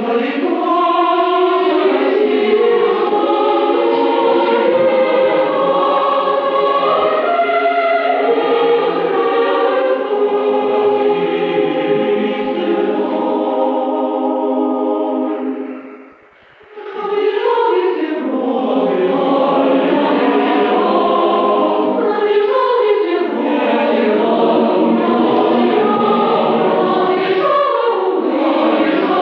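Choir singing in sustained, full-voiced chords. It breaks off for about half a second roughly halfway through, then starts again.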